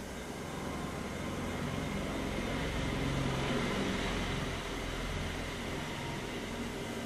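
Steady low mechanical hum with hiss, swelling a little in the middle and easing off again.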